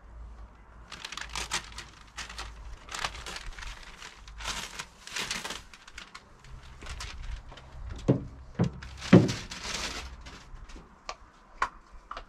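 Irregular crinkling and rustling of sheet material being handled, with a few sharp knocks about eight to nine seconds in.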